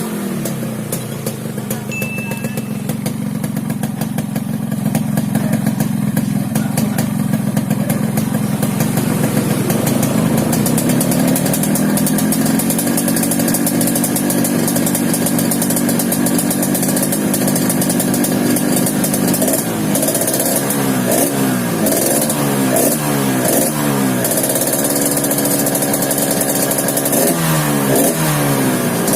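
Yamaha RX-King's single-cylinder two-stroke engine running through an aftermarket 'ngorok' exhaust, tuned for a snoring, growling tone. It idles steadily, its speed creeping up a little partway through, then the throttle is blipped in quick repeated revs through the last third, with a brief return to idle between two groups of blips.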